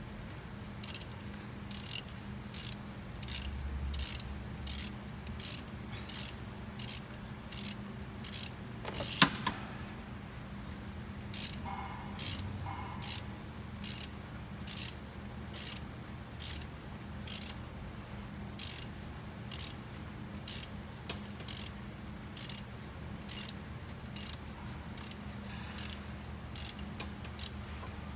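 Ratchet wrench clicking in a steady run of short strokes, between one and two clicks a second, as it winds a new oil pressure sensor into a 2006 Jeep Grand Cherokee engine. One louder click or knock comes about nine seconds in.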